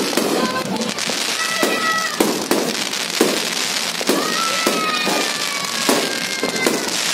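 Fireworks bursting: a string of sharp bangs, roughly one or two a second, over continuous crackling.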